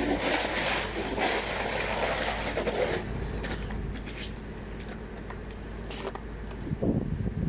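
Steady noise beside a standing passenger train on a station platform, louder for the first three seconds, then quieter with scattered clicks and knocks.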